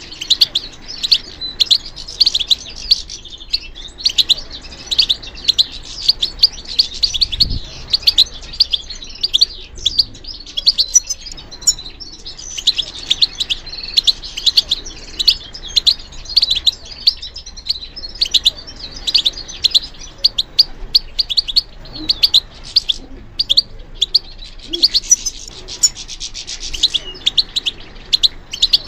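European goldfinch song: a long, rapid twittering of high chirps and trills, broken only by a few short pauses.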